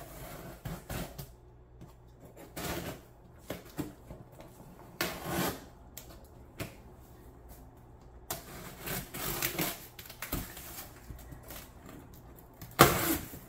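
Hands tapping, scratching and rustling on a cardboard box being opened: scattered clicks and taps with a few longer scratchy rustles, and a loud sharp scrape near the end.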